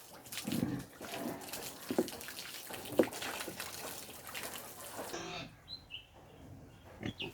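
Water running and splashing, with a few sharp knocks; the water stops about five seconds in, leaving a couple of short high chirps.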